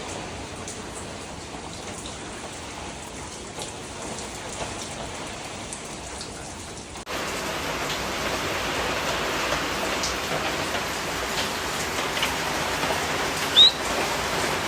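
Steady rain falling, with scattered drips; it gets abruptly louder about seven seconds in. A brief high chirp sounds near the end.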